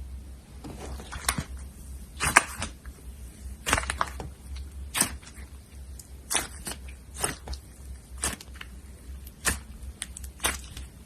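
Slime being squeezed and pressed by hand, giving about a dozen irregular sharp pops and clicks over a steady low hum.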